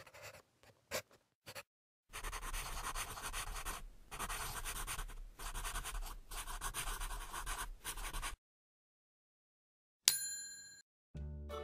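Pencil-on-paper writing sound effect: a few short scratches, then about six seconds of continuous rapid scribbling that stops abruptly. A bright chime rings about ten seconds in, and light mallet music begins just before the end.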